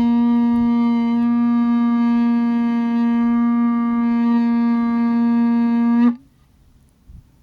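A shofar blown in one long, steady note full of overtones, which cuts off about six seconds in.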